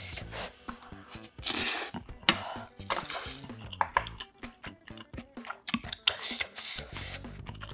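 Close-miked eating sounds: chopsticks clicking against bowls and dishes, with a few longer wet, squishy chewing sounds in between.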